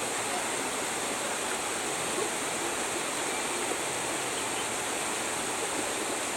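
Steady rush of falling water from a waterfall, an even roar with no breaks.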